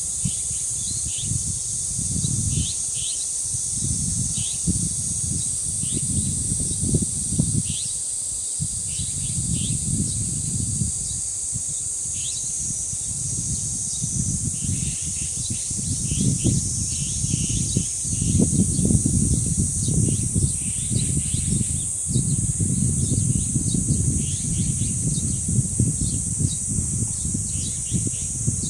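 Cicadas buzzing in a steady high chorus, with many short bird chirps over it, while gusts of wind rumble on the microphone, strongest in the second half.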